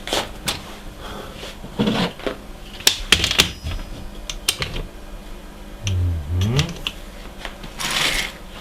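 Irregular small clicks, taps and knocks of tools and small parts being handled while a micro milling machine is set up. There is a short low rubbing sound about six seconds in and a brief hiss near the end.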